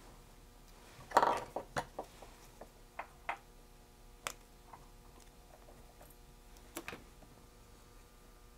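Light clicks and taps of fingers handling small parts close up, most of them in a cluster about a second in with single ticks after, over a faint steady hum.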